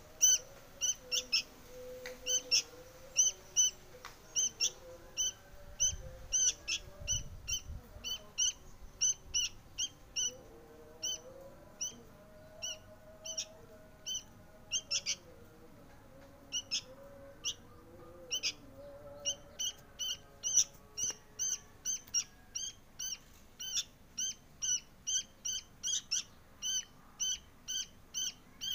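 Sooty-headed bulbul fledgling begging to be fed: a long run of short, high chirps, about two or three a second, with a short pause around the middle.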